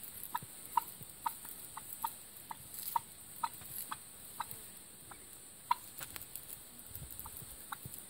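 Turkeys giving short, separate calls, roughly two a second, which grow sparser in the second half.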